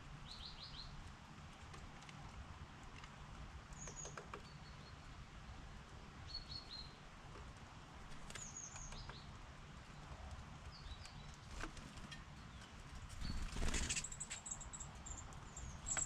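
Small wild birds giving short, high chirps in quick little groups, with scattered light taps from pecking, and a louder rustle near the end.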